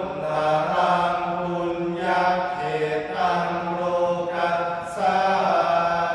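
A group of male voices chanting Thai Buddhist verses in unison in the melodic sarabhanya style. The notes are long and held, with short breaks every second or two.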